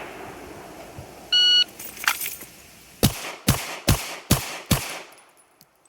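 A shot timer's start beep, then about 1.7 s later five pistol shots in quick succession, fired over about 1.7 s on a draw from concealment.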